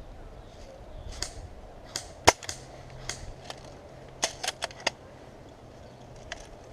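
Airsoft guns firing: about ten sharp shots at irregular spacing, including a quick run of four about four seconds in.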